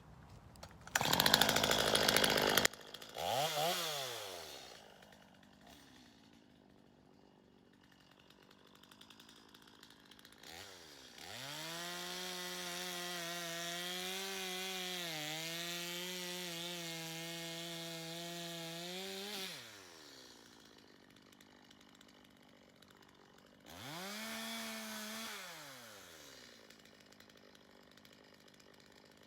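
Chainsaw cutting a log, revving in bursts between stretches of idle: a loud rasping burst about a second in, then a short rev, then a steady high-revving run of about eight seconds whose pitch sags briefly midway under the load of the cut, and another short rev near the end.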